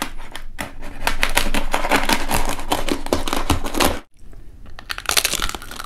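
Knife cutting into the crisp skin of a rolled roast pork belly (lechon belly), with a dense run of crackling crunches. The crackling is loudest from about a second in to about four seconds in, then drops off sharply, and a few quieter crackles follow.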